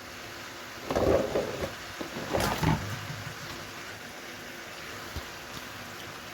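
Vegetables and gizzard sizzling steadily in a frying pan, with a spatula stirring and scraping against the pan twice in the first few seconds.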